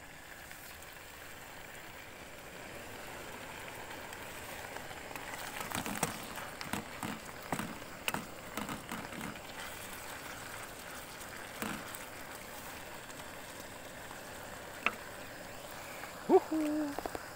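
Water spinach stir-frying in a pan: a steady sizzle, with a spatula clattering and scraping against the pan for a few seconds about six seconds in. A few single clicks follow, and a brief pitched sound comes near the end.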